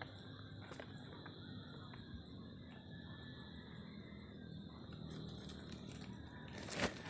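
Outdoor rural ambience with a steady high insect drone and a few faint clicks, broken by one short, sharp noise near the end.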